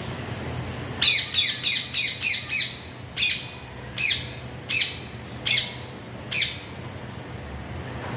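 A parrot calling: a quick run of about six short, falling squawks about a second in, then five more spaced roughly a second apart. A faint steady low hum runs underneath.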